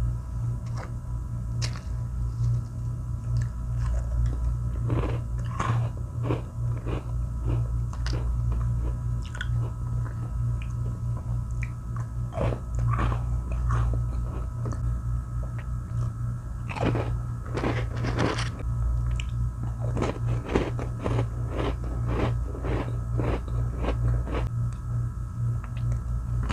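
Chocolate cream sandwich biscuits being bitten and chewed: irregular crisp crunches, coming thicker in the second half. A steady low hum runs underneath.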